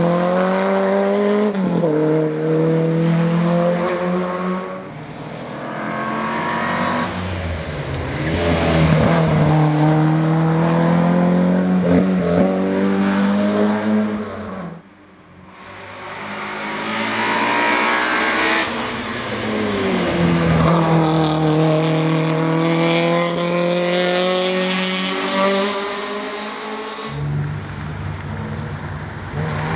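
Race car engines driven hard up a hillclimb course. First an Opel Kadett C runs at high revs and pulls away, changing gear several times. After a short lull near the middle, a second car, a Nissan 350Z, comes up the course toward the listener, its engine revving through the gears.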